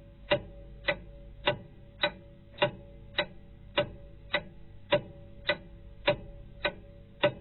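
Steady, evenly paced ticking, a little under two ticks a second, each tick short and sharp with a faint ring.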